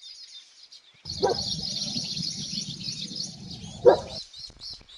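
A flock of baya weavers chirping and chattering, faint at first, then dense and louder for about three seconds over a low rumble. Two short, lower-pitched sounds stand out, one just after the burst begins and one near its end.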